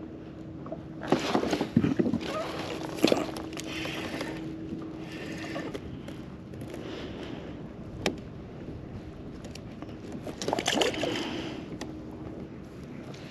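Water sloshing and splashing against the hull of a Hobie Compass fishing kayak, with a few sharp knocks about one to three seconds in and again near eleven seconds.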